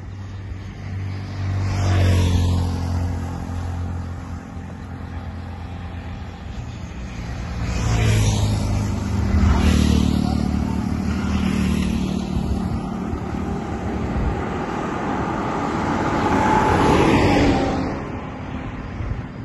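Road traffic on a two-lane highway: several vehicles pass close by one after another, each one rising and fading. The loudest passes come about two seconds in, around eight to ten seconds in, and near the end.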